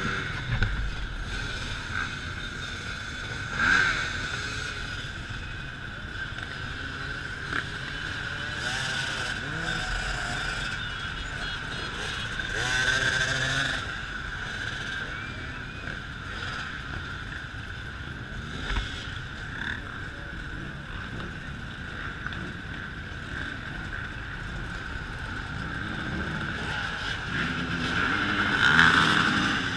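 A massed pack of enduro dirt bikes riding past, their engines blending into a steady buzzing drone. Single bikes rev louder as they pass close a few seconds in and around the middle, and loudest near the end.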